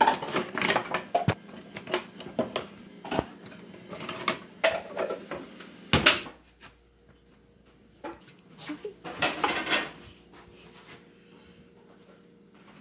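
Wooden spoons, spatulas and other kitchen utensils clattering as a kitchen drawer is rummaged through, ending with a loud knock about six seconds in as the drawer is shut. A shorter burst of rattling follows a few seconds later.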